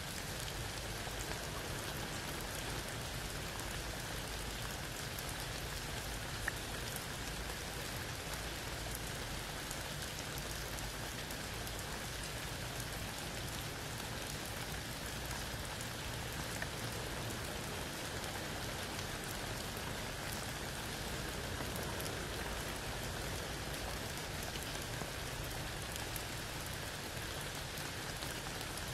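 Steady rain falling under a tree onto wet ground and a puddle, with scattered single drops ticking through the hiss; one drop stands out louder about six seconds in.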